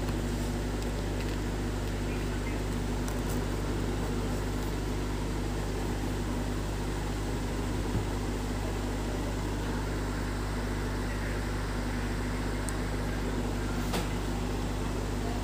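A steady low hum of machine or electrical noise, unchanging throughout, with a faint click about eight seconds in and another near the end.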